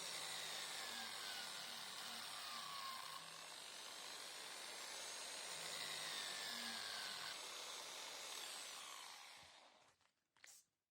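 Electric power tool running with a whine that drifts up and down in pitch, then spinning down and stopping near the end.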